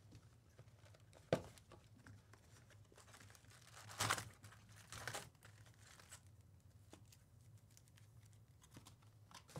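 Cardboard hobby box opened and its foil-wrapped Topps Chrome trading card packs pulled out and stacked: faint crinkling and rustling of the pack wrappers and box, with a sharp click about a second in and louder rustles around four and five seconds in.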